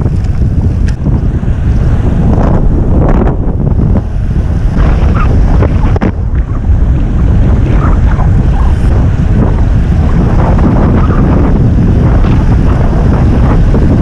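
Wind buffeting the microphone of a road cyclist riding at speed: a loud, steady low rumble.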